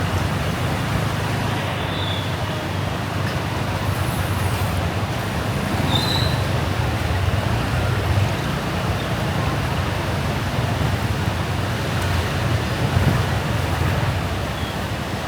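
Steady traffic and road noise heard from a moving motorbike in heavy rain: a continuous low rumble with rain and wet-road hiss, and a few brief high-pitched chirps.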